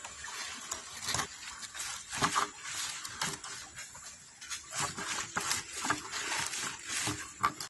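Irregular rustling and crackling of leaves and thin plastic as a soft-drink-bottle fruit picker on a pole is worked up around a guava hanging among the branches.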